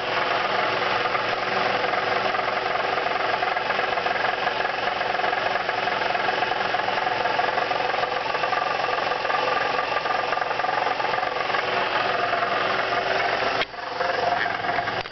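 2002 Nissan Maxima's 3.5-litre V6 engine idling with a steady rattle from under the hood, whose cause is unknown to the owner; compression is even across all six cylinders and the oil pressure light stays off, and the rattle grows louder as the engine warms up. The level drops briefly near the end.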